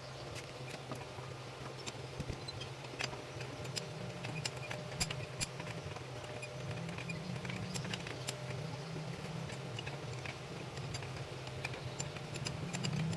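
Stick (SMAW) welding arc crackling, with irregular sharp pops and snaps over a steady low hum.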